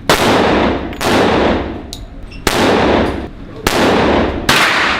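Five gunshots fired one after another, roughly a second apart, each followed by a long echoing decay.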